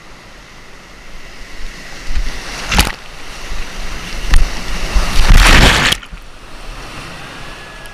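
Whitewater rushing around a kayak running a steep rapid. It swells as the boat drops in, with a sharp splash about three seconds in and a loud crash of water from about four to six seconds that cuts off suddenly.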